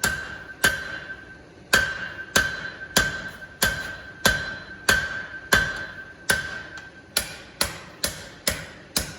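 Hand hammer striking hot steel flat bar on an anvil, drawing it out: steady blows about one and a half a second, each with a clear ringing tone from the anvil, then about seven seconds in a run of quicker, lighter blows without the ring.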